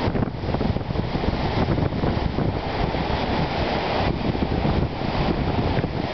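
Wind-driven waves on Lake Superior breaking and washing over a rocky shore, a continuous surging rush of surf, with wind buffeting the microphone.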